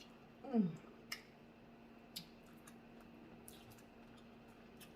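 A short falling "mmm" about half a second in, then a few scattered faint clicks and wet mouth sounds of someone eating a seafood boil, with a steady low electrical hum underneath.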